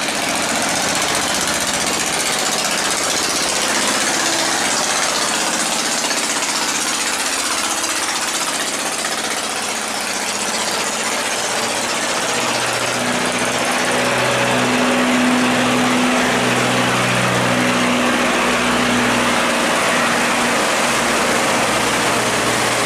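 Boat engines running as cargo boats and a steel barge push through the sluice gate against strong rushing, churning water. About halfway through, a steady low engine drone grows louder as a barge passes close.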